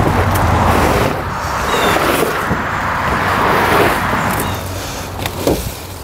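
Road traffic: a passing car whose noise swells and then fades out near the end. A couple of light knocks come just before it dies away.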